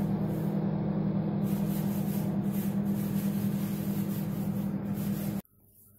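Microwave oven running while baking a cake: a steady electrical hum with fan noise, cutting off suddenly about five seconds in.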